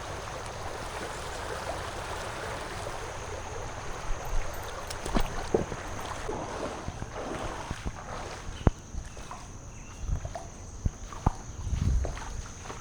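Shallow creek water running, with scattered knocks and splashes and a few low thumps near the end.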